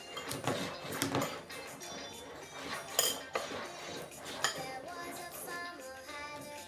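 A baby knocking a plastic cup on a plastic high-chair tray: a run of sharp knocks in the first few seconds, the loudest about three seconds in and one more at about four and a half. Music plays underneath and its melody comes forward near the end.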